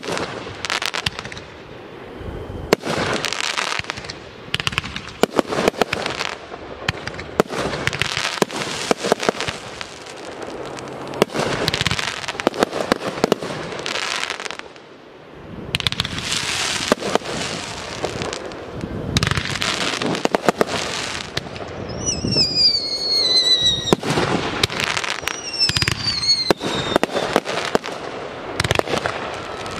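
Aerial fireworks display: a rapid string of shell bursts, bangs and crackling, easing briefly past the halfway point. Several falling whistles sound about three-quarters of the way through.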